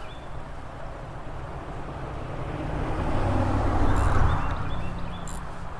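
A car passing by, its engine and tyre noise swelling to a peak about four seconds in and then fading away.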